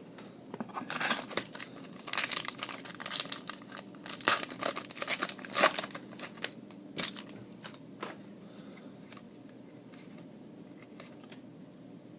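Foil trading-card pack wrapper crinkling and tearing open in a run of sharp rustles during the first several seconds, then only faint handling.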